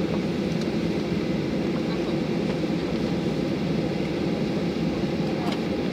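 Cabin noise inside a Boeing 737-800 taxiing after landing: its CFM56 engines idling, heard as a low, steady rumble.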